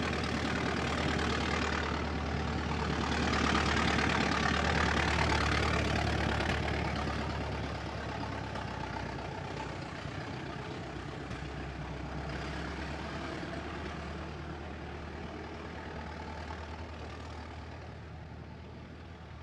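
A 1920s American car's engine running at a steady pace, loudest a few seconds in, then slowly fading as the car moves off.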